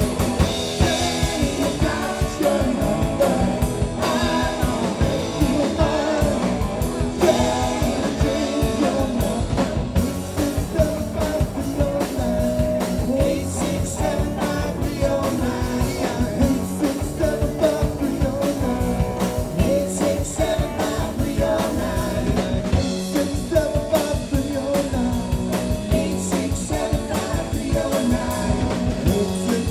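Live rock band playing: electric guitar, bass, keyboard and drum kit, with a steady beat.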